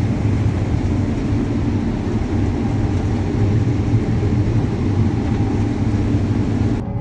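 Combine harvester running steadily in a corn field, a dense, heavy engine and machinery noise, until an abrupt change just before the end.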